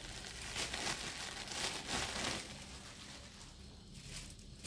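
Clear plastic polybag crinkling and rustling as a child's outfit on a hanger is pulled out of it. The rustling comes in a run of bursts over the first two seconds or so, then dies down.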